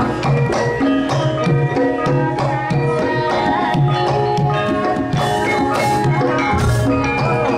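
Javanese gamelan playing a lively piece: ringing bronze kettle gongs and metallophones over a steady, repeating hand-drum pattern.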